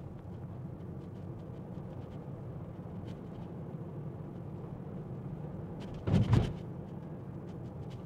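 Steady low rumble of road and traffic noise heard inside a Tesla's cabin at an intersection, with a short, louder double sound about six seconds in.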